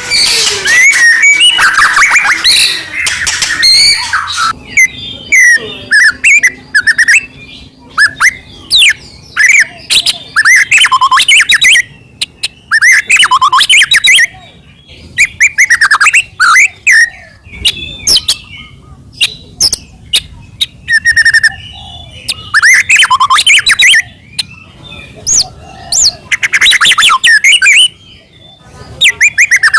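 White-rumped shama (murai batu) in full, loud song: phrase after phrase of sweeping whistles and rapid trills, with short pauses between them.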